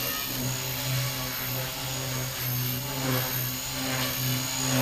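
Blade Fusion 180 electric RC helicopter flying low, its rotor giving a steady buzz over a high whine from the electric motor. The sound rises and falls slightly as the helicopter moves.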